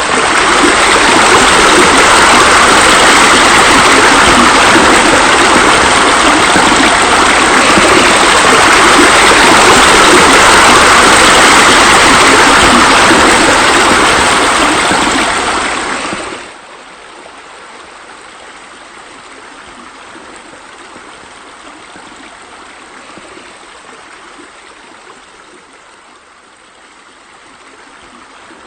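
Waterfall water pouring into a pool, a loud, steady rush. About sixteen seconds in it drops suddenly to a much quieter flowing-water sound, which carries on.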